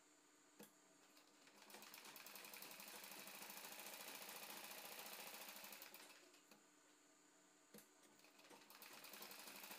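Sewing machine stitching in two runs with a rapid, even needle beat: one lasting about four and a half seconds, then, after a short pause, another starting near the end. A single click comes before each run.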